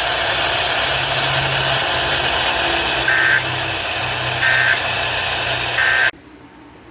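Weather-radio broadcast hiss and hum with three short bursts of EAS end-of-message data tones, a little over a second apart, signalling the end of the severe thunderstorm warning. The audio then cuts off abruptly near the end.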